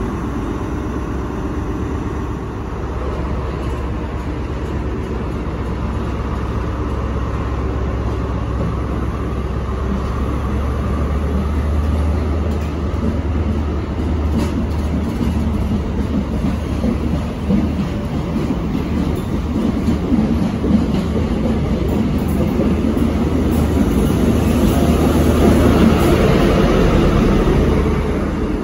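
GWR InterCity 125 departing: the diesel engines of its Class 43 power cars hum steadily under power while the coaches' wheels rumble over the rails with an occasional knock. The sound grows louder as the rear power car comes level, then drops just before the end.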